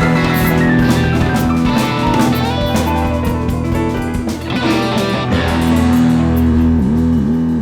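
Live rock band playing an instrumental passage: an electric guitar lead with gliding notes over bass and a drum kit.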